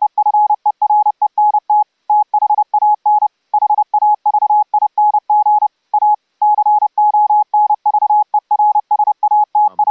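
Morse code (CW) sent from paddles in AFCW mode: a single steady tone of about 800 Hz, keyed on and off rapidly in dots and dashes with short gaps between characters.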